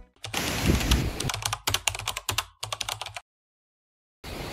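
Computer keyboard typing sound effect: a quick, irregular run of key clicks for about three seconds, then it cuts off. After a second of silence, wind noise on the microphone starts near the end.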